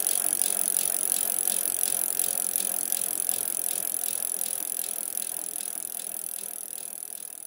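Bicycle freewheel ticking rapidly and evenly as a mountain bike coasts, with a steady high hiss, fading toward the end.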